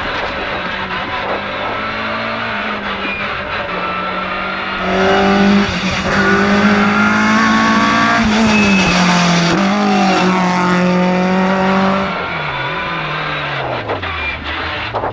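Peugeot 205 rally car's engine held at high revs while driving hard uphill, heard from inside the cabin. For several seconds in the middle it is heard from the roadside as the car comes past, louder. Near the end the revs drop and pick up again.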